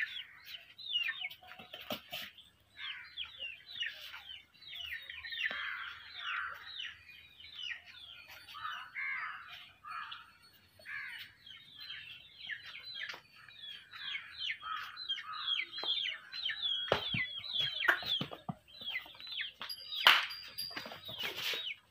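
Many small birds chirping together, a dense stream of short falling chirps overlapping one another. A few sharp knocks come in the last few seconds, the loudest about two seconds before the end.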